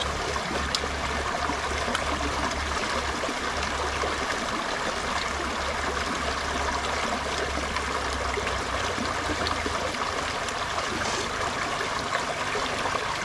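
Shallow river running over rocks, a steady rushing and trickling of water.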